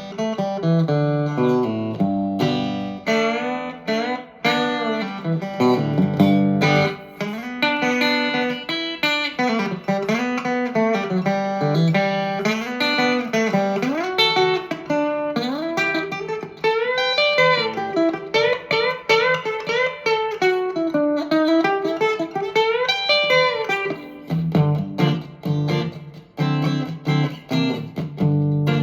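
Harley Benton TE-62CC Telecaster-style electric guitar on its bridge single-coil pickup, played clean through a Vox AC10 valve amp. Chords at the start and near the end frame single-note lead lines full of string bends in the middle.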